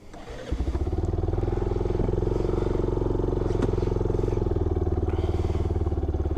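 Benelli BN125's single-cylinder engine catching about half a second in, then running at a steady speed.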